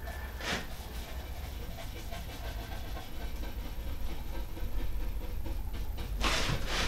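A steady low machine hum, with two short hissing bursts: one about half a second in and one near the end.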